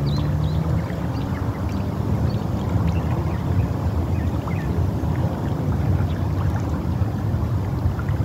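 Wind buffeting the phone's microphone: a steady, fluctuating low rumble, with a few faint high bird chirps over it.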